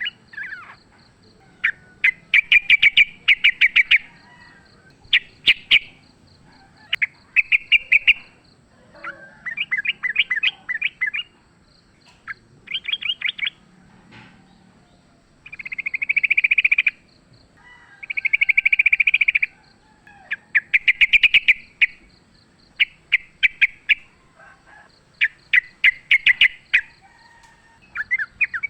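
Yellow-vented bulbul (trucukan) singing in a long series of phrases. Each phrase is a burst of rapid notes lasting a second or two, with short pauses between.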